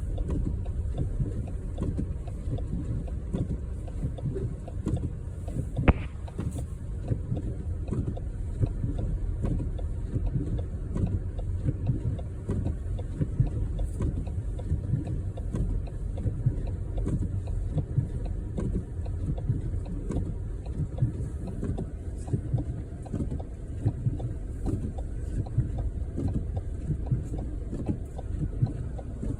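Steady low rumble of a vehicle driving on the highway, with a single sharp click about six seconds in.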